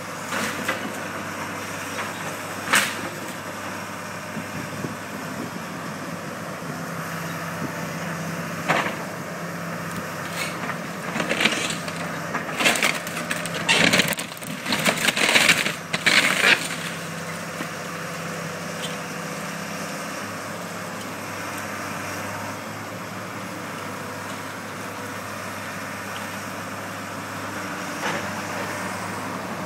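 Caterpillar 315C hydraulic excavator running steadily while its bucket tears into a wood-frame house. Boards and framing crack and splinter, with a few single sharp cracks, then a dense run of loud crashing and splintering in the middle.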